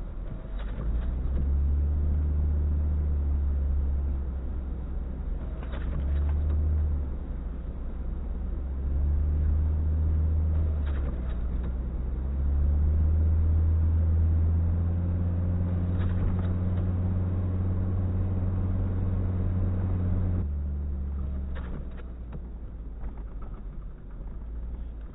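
A vehicle engine revving in several long surges and easing back between them, then dropping off sharply near the end. A few faint short clicks are heard along the way.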